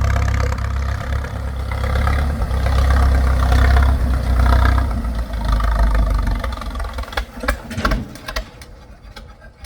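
An old tractor's engine running with a strong low rumble, which fades out about seven seconds in, with a few sharp knocks as it dies away.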